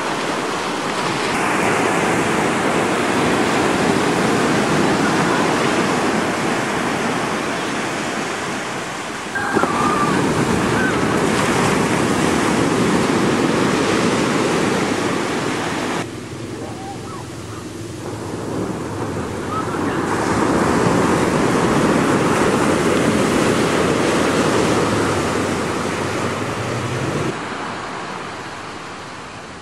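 Ocean surf breaking and washing up a sandy beach, the rush swelling and fading with each wave. The level jumps abruptly a few times.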